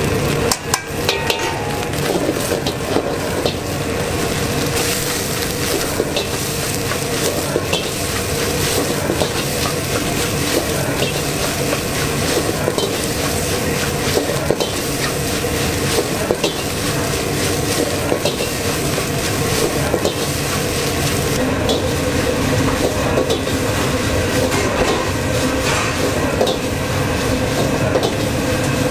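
Fried rice stir-fried in a wok: a metal ladle scrapes and clanks against the wok over a steady sizzle, with frequent short knocks.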